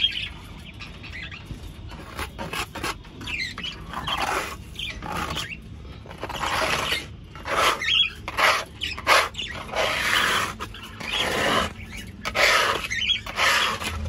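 A flock of budgerigars chattering and squawking in irregular short bursts.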